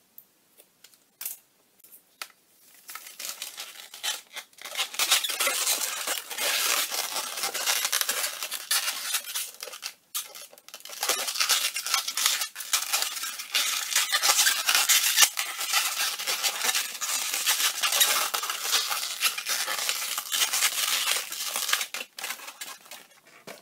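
Inflated red 260Q latex modelling balloon rubbing and squeaking against itself and the hands as it is twisted and bent into shape, with a brief break about ten seconds in.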